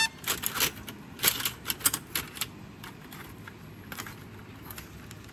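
Chopsticks clicking against scallop shells in a pan: a quick run of sharp clicks over the first two and a half seconds, then only a few.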